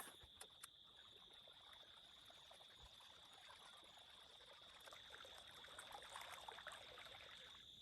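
Near silence: faint outdoor ambience with a steady high-pitched tone throughout and a few faint ticks in the first second.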